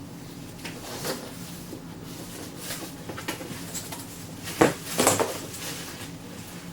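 A large cardboard shipping box being handled and opened: scattered rustles and light clicks, with a sharp knock about four and a half seconds in and a short cluster of scraping knocks just after.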